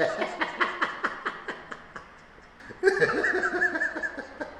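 A person laughing in two bouts of quick, rhythmic pulses: one at the start and a second, louder bout about three seconds in.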